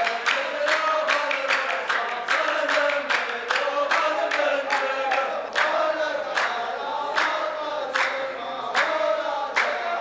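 A row of men chanting a line of verse in unison, with hand claps keeping a steady beat about twice a second: the chorus of a Saudi muhawara poetry duel.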